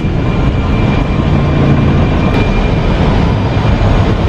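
Airbus A320 on its takeoff roll, heard from the flight deck: a loud, steady rumble of the engines at thrust and the wheels on the runway, with a faint high steady tone above it.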